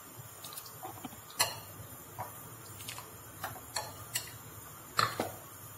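A metal ladle clinking against the cooking pot and a glass bowl while chickpea curry is ladled out: about ten light, irregular clinks, the loudest about a second and a half in and again near the end.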